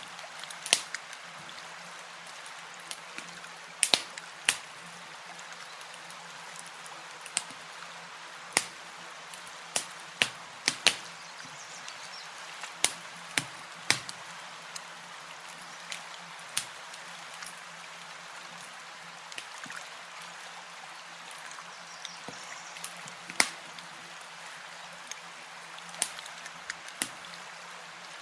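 Campfire crackling: irregular sharp pops and snaps, several a second at times, over a steady hiss.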